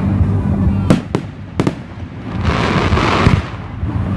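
Fireworks display: three sharp bangs about a second in, then a noisy rushing burst that lasts about a second, over a steady low rumble.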